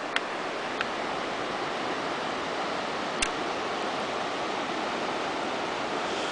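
A steady, even rushing hiss, with a few light clicks near the start and one about three seconds in.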